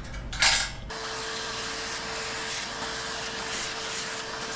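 A brief clatter, then about a second in a small motor-driven air tool, like a shop vacuum or blower, starts and runs steadily. It makes an even rushing hiss over a single steady hum.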